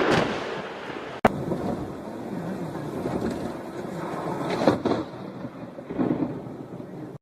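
Thunder rumbling with rain falling. The sound cuts off abruptly about a second in and another stretch of thunder rumble and rain begins, swelling twice near the end, with a faint steady high whine beneath it.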